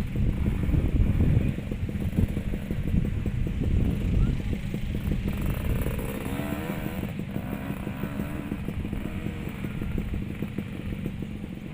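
Motocross bike engines running and revving, loudest in the first second or so, then running on more steadily.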